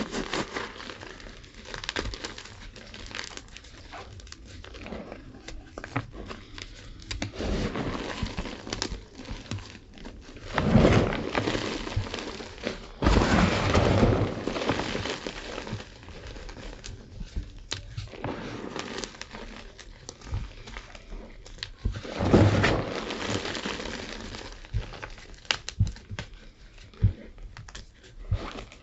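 Blocks of gym chalk being crunched and crumbled: a steady run of dry crackles, with heavier crushing spells about eleven, thirteen and twenty-two seconds in.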